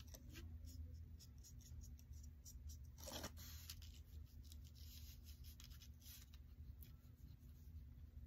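Faint brush strokes of a watercolor brush on sketchbook paper, soft brushing and dabbing, one a little louder about three seconds in, over a steady low hum.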